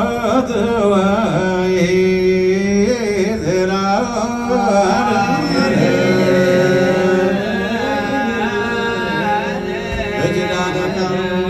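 Unaccompanied Ethiopian Orthodox liturgical chant: voices singing long, melismatic lines with held and bending notes, several voices overlapping from about halfway through.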